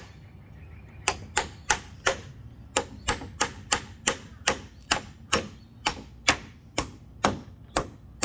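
Hammer blows struck steadily, about two to three a second, with a short pause about a second long at the start.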